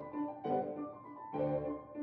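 Background piano music, with a new chord struck about once a second.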